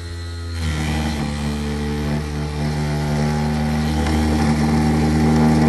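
Homemade drill built from a 12-volt 775 DC motor, running with a steady whine as its thin bit bores into a block of wood. About half a second in, the sound grows louder and rougher and its pitch shifts as the bit cuts.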